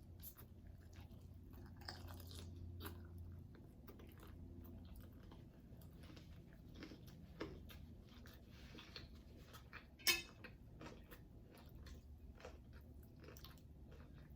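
A person chewing and biting into tacos, with scattered short clicks of mouth and food noise. The sharpest click comes about ten seconds in.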